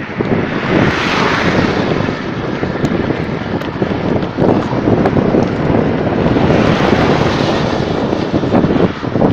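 Wind buffeting a phone's microphone during a bicycle ride along a highway, a steady rough rushing noise. Two louder rushing swells rise and fall, one about a second in and one around seven seconds.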